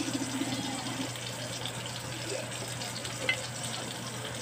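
Onion rings and fat sizzling in a hot cast-iron skillet, a steady hiss, with a single light clink of metal tongs about three seconds in.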